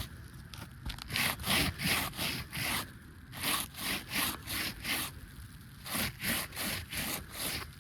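Rhythmic rubbing strokes across the gritty surface of three-tab asphalt roof shingles, about three a second with a couple of short pauses. The rubbing is knocking loose granules off the shingles, a sign of aggregate loss on an aged roof.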